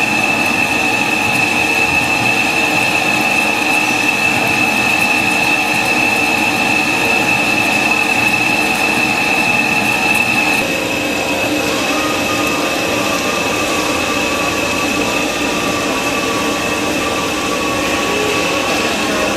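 Heavy-duty lathe machining a steel rotor shaft: the cutting tool runs steadily against the turning shaft with a high-pitched whine. About halfway through the sound changes and drops a little, and a lower steady whine follows.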